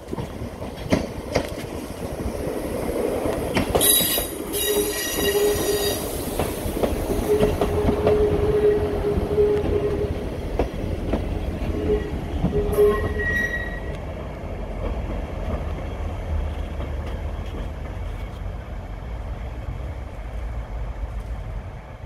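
Class 158 diesel multiple unit running slowly through the station: its wheels click over rail joints about a second in and again near four seconds, then squeal in a steady tone for several seconds with brief higher squeals, over the low rumble of its diesel engines, which carries on after the squealing stops.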